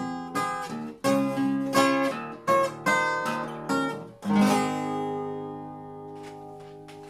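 Acoustic guitar strumming the closing chords of a song, then a final chord about four seconds in that is left to ring and slowly fade.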